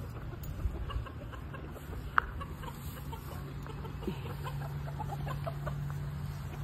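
Chickens clucking in short scattered calls. There is a sharp click about two seconds in, and a steady low hum sets in about halfway through.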